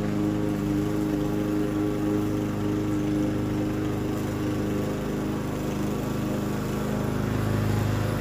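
Lawn mower engine running steadily while mowing grass, a constant drone whose low tone grows a little stronger near the end.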